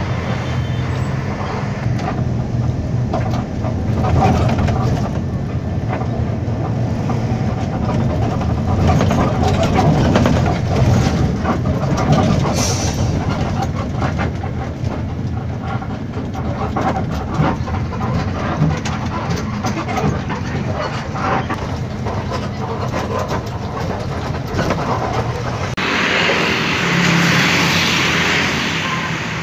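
Bus engine drone and road noise heard from inside a moving bus's cabin, with many small rattles and knocks. Near the end the sound changes to a steadier hiss with engine and traffic noise, heard outside beside a parked bus.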